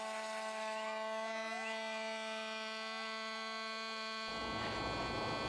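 Electric vibrating engraving pen buzzing steadily as parts are marked. It stops about four seconds in, and a rushing noise follows.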